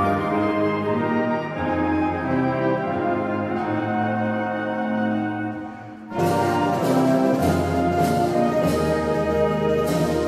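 A high school band of brass and woodwinds (trumpets, euphoniums, tuba, horns, saxophones, clarinets, flutes) plays the school alma mater as a virtual ensemble mixed from home recordings. The band holds slow sustained chords, fades briefly about six seconds in, then comes back in together on a full chord.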